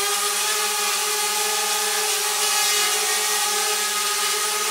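DJI Spark quadcopter hovering low, its four propellers and motors giving a steady whirring buzz with a fixed pitch over a hiss of rushing air.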